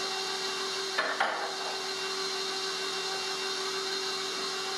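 Electric stand mixer running steadily, beating cookie dough in its steel bowl, with a couple of short knocks about a second in.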